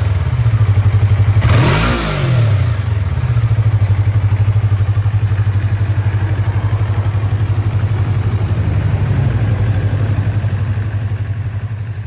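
Yamaha YZF-R25's parallel-twin engine idling steadily, heard close at the exhaust, with one quick throttle blip about two seconds in. The idle fades away near the end.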